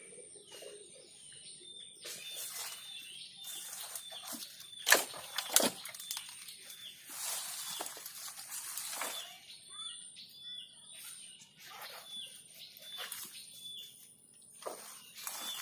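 A bird chirping: short, identical chirps repeated about once a second. Two sharp knocks come near the middle, with some rustling just after them.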